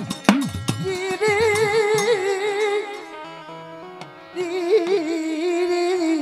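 Devotional folk music: the last few drum strokes, their pitch sliding down, give way to two long held, wavering melodic notes over a steady drone.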